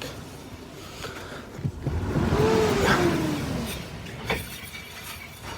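Chevy Avalanche's rear brakes locking up: a scraping skid with a groan that rises and falls in pitch for about two seconds, then a short click.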